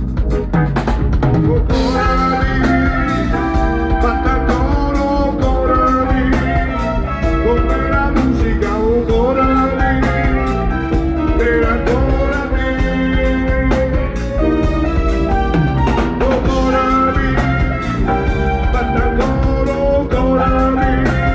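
Live band music, loud and continuous, with a steady drum beat, keyboards and a sustained lead melody line over them.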